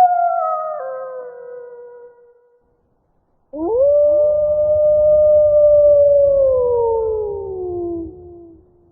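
Wolf howling: a long held howl dropping in pitch and fading out, then after a second's pause a second howl that swoops up, holds a steady pitch for a few seconds and slowly falls away. A low rumble sits beneath the second howl.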